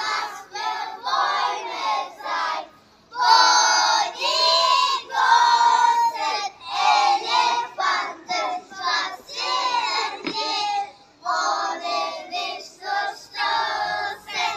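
A group of young children singing together in chorus, phrase by phrase with short breaks.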